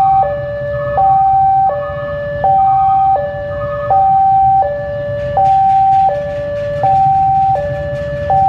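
Electronic two-tone warning alarm sounding a steady hi-lo, each tone lasting about three quarters of a second, over the low rumble of a diesel locomotive moving slowly.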